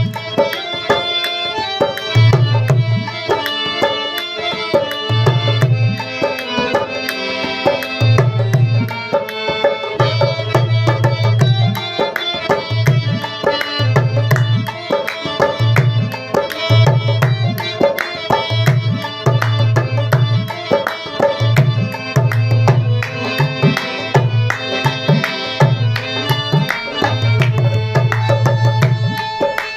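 Background music: rhythmic tabla-style hand drumming under a melody, steady throughout.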